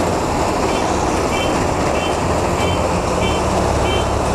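Kubota DC93 rice combine harvester's engine and threshing machinery running steadily under load. A short electronic beep starts about a second in and repeats roughly every two-thirds of a second.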